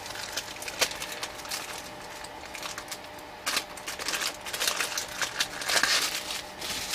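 Irregular light clicks and rustling of small things being handled, busiest from about three and a half seconds in.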